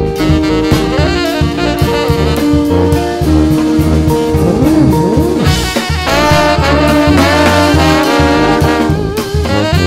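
Live New Orleans-style brass band playing funk: a tenor saxophone line over drum kit, electric guitar and sousaphone, with trombone and trumpet coming in together a little past halfway to fill out the horn section.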